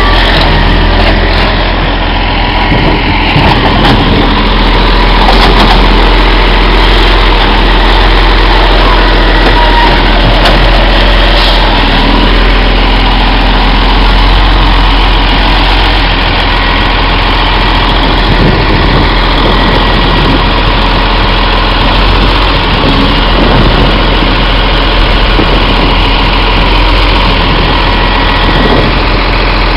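Iveco Acco side-loader garbage truck's diesel engine idling, loud and steady.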